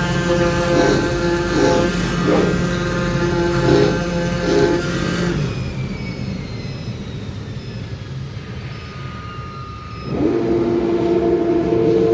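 CNC oscillating-knife foam cutting machine running: a steady machine hum that swells in pulses less than a second apart, dies down about halfway through with faint falling tones as it winds down, then starts up again at full level near the end.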